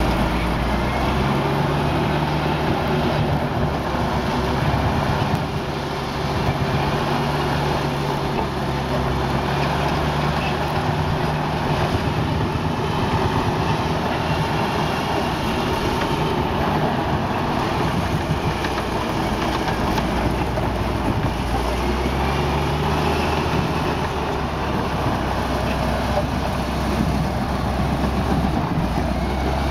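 M75 armored personnel carrier on the move over gravel: its air-cooled six-cylinder gasoline engine runs steadily while the steel tracks clatter. The engine note shifts slightly in pitch now and then.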